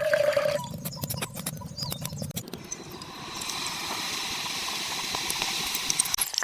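Light clicks and taps of small utensils, then from about three seconds in a steady sizzle of hot oil with fine crackles, as food starts frying in a tiny pan.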